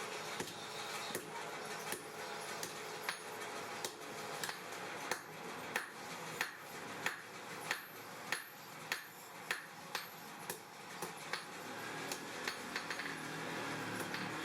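Blacksmith's hammer striking hot steel on an anvil in a steady rhythm, about one and a half blows a second, while forging tongs. A steady hiss runs underneath.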